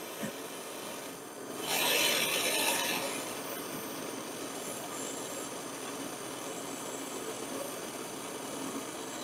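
Handheld gas torch flame hissing steadily as it heats a stuck grinder wheel nut to free it, with a louder rush about two seconds in.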